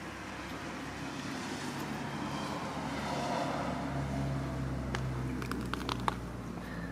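Background motor noise of a passing vehicle, swelling about three seconds in, with a low steady hum joining from about four seconds. A few short light clicks near the end.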